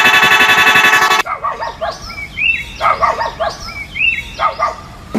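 Loud truck horn blasting for just over a second, then cutting off abruptly, followed by a few seconds of shrill chirping calls.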